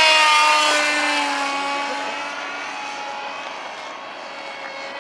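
RC aerobatic plane's motor and propeller flying past: a steady pitched drone, loudest at first, that drops a little in pitch and fades as the plane moves away.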